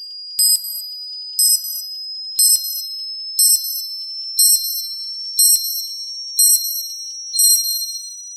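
Countdown timer sound effect: a short, high, bell-like electronic beep once a second over a thin steady tone that slowly rises in pitch. The beeps stop near the end, leaving the tone held on its own.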